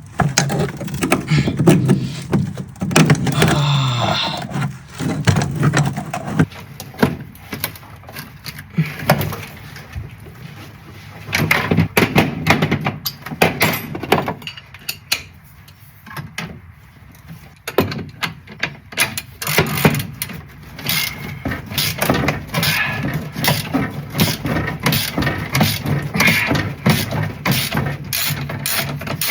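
Hand tools working on metal bolts holding a car's pedal box to the floor: scattered knocks and scrapes, then a long run of rapid clicking in the second half.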